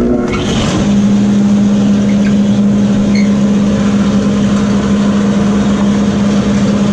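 Shop dust collector switched on: its motor and blower spin up over about the first second, then run steadily and loudly with an even hum.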